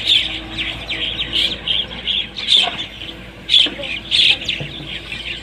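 Small birds chirping rapidly and continuously, many short sharp calls overlapping, with louder bursts every second or so.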